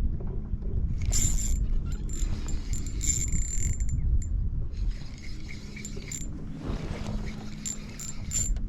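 Ultralight spinning reel being cranked in three spells, its gears whirring with a thin high whine, over a steady low hum and a low rumble.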